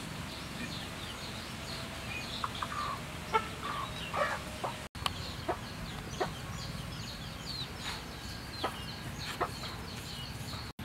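Chickens clucking, with many short high chirps scattered throughout over a steady low background.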